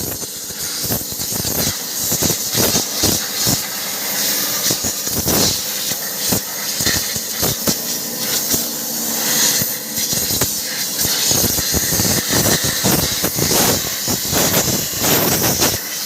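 Compressed-air blow gun hissing in uneven blasts as it blows dust out of an electric motor.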